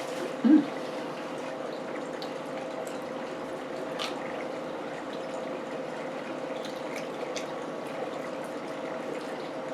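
Eating sounds close to the microphone: faint, scattered clicks and smacks over a steady hiss with a low hum, and a short, low, voiced "mm" about half a second in.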